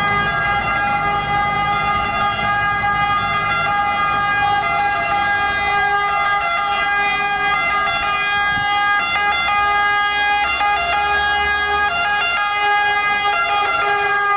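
Siren of an Italian fire brigade Mercedes-Benz Actros 1841 APS fire engine, sounding continuously as the truck approaches on an emergency run.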